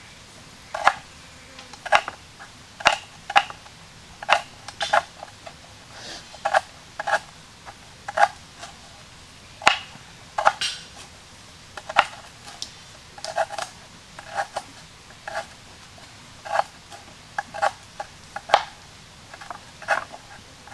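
Broad-bladed kitchen knife chopping through stalks onto a wooden cutting board: sharp knocks at an uneven pace, about one or two a second.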